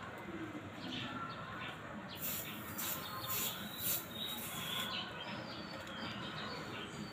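Aerosol can of Koby tire sealant hissing in a run of short spurts, starting about two seconds in and lasting nearly three seconds, as it discharges through the tire valve into a scooter tire. Faint bird chirps in the background.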